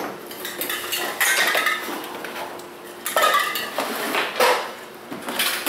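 Clinking and clattering of hard, metallic-sounding objects being handled, in irregular knocks with brief ringing.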